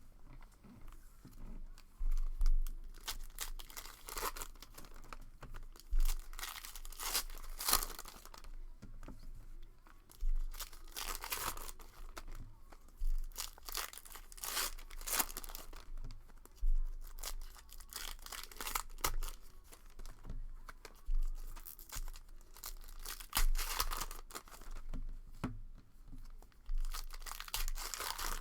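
Trading card box and pack wrappers being torn open and crinkled by hand, in repeated bursts of tearing and rustling with low thuds of handling on the table.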